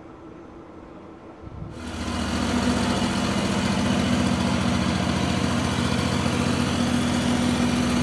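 Portable band sawmill running: a low engine hum that about a second and a half in jumps suddenly to a loud, steady engine drone with a hiss over it.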